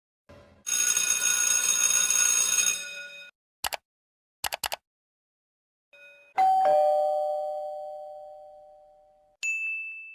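A string of separate sound effects. First comes a ringing, jangling sound lasting about two and a half seconds, then a click and a quick triple click. About six seconds in, a doorbell-like chime is struck and fades over three seconds, and near the end a short high ding sounds.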